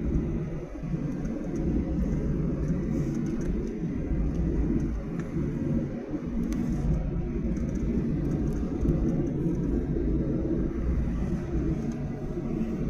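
Cabin noise of a Boeing 737-800 taxiing after landing: a steady low rumble of the engines at idle and the wheels rolling on the taxiway.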